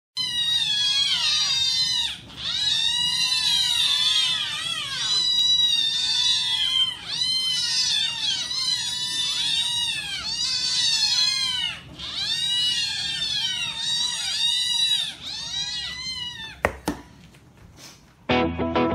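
Several kittens meowing over one another, a dense chorus of short rising-and-falling meows, as they beg to be fed. The meowing stops about three-quarters of the way through, followed by a couple of sharp clicks, and music begins at the very end.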